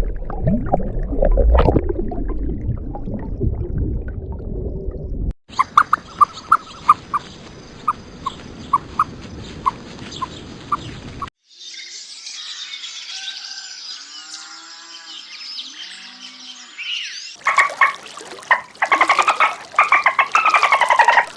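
A string of short animal-call clips cut one after another. First a loud low-pitched call, then a run of about ten evenly spaced short chirps, then gliding calls, and near the end fast, dense, pitched calls.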